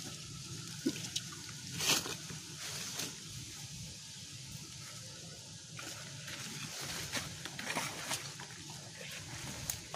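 Irregular rustling and crackling with scattered sharp clicks, loudest about two seconds in, over a steady low background hum.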